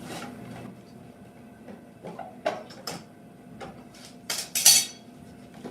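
Paring chisel cutting wood by hand: a few light scrapes and taps, then one louder scraping stroke of about half a second near the end.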